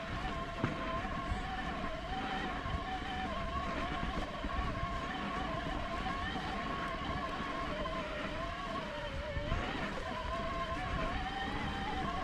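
Electric mountain bike's motor whining steadily under pedal assist, its pitch wavering slightly, over the low rumble of tyres on a rough trail, with a couple of knocks early on.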